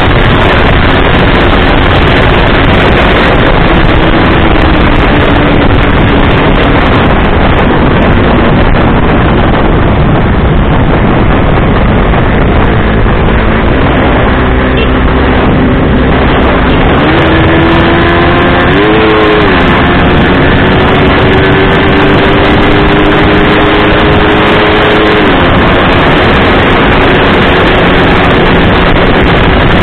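Heavy wind rush on a camera mounted on a single-cylinder underbone motorcycle at highway speed. The engine's steady drone sits underneath; its pitch rises about 17 seconds in, briefly climbs again near 19 seconds, and drops abruptly near 25 seconds.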